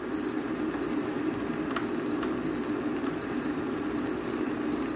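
A pot of kimchi and bean-sprout ramyeon boiling, a steady low rumble, with a high electronic beep sounding about seven times at uneven intervals, a few of the beeps held longer than the rest.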